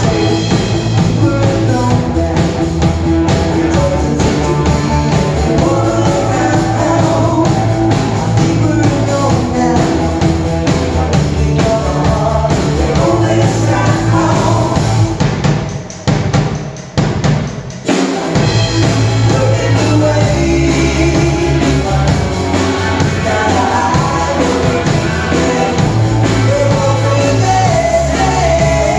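Live rock band playing: a woman singing over electric guitars and a drum kit. The band drops out briefly for about two seconds a little past the middle, then comes back in.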